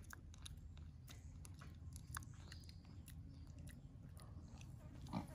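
A small black pig chewing, faint scattered crunching clicks, with a slightly louder sound about five seconds in.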